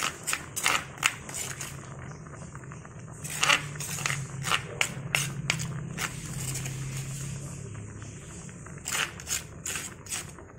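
A spoon scraping ground spice paste out of a cobek mortar, in irregular scrapes and taps, over the steady low sound of the pot boiling on the gas stove.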